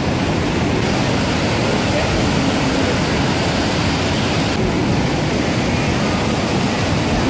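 Flood-swollen river rushing over a waterfall and through rapids: a loud, steady rush of whitewater.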